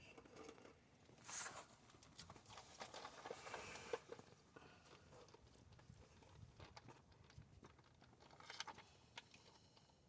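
Near silence broken by faint, scattered clicks, taps and brief rustling as hands work on a car's plastic interior trim and screws. There is a sharper click about four seconds in and a small cluster of clicks near the end.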